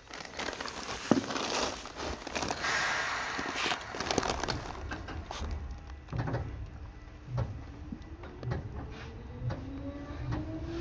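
Seibu 2000 series electric train starting off from a stop. A noisy stretch with a sharp clunk about a second in comes first. From about six seconds in, the traction motor hum rises steadily in pitch as the train accelerates, and the wheels thump over rail joints about once a second.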